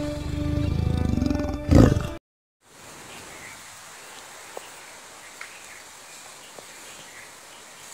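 Intro jingle music with a big-cat roar sound effect that swells to its loudest about two seconds in, then cuts off abruptly. After a moment of silence, a faint outdoor background follows, with a few faint clicks and short chirps.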